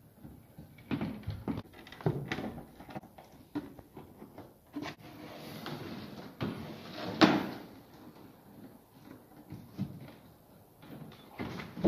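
Electrical cable being handled and pulled through wooden framing: irregular knocks, rubs and scrapes against the wood, the loudest a sharp knock about seven seconds in.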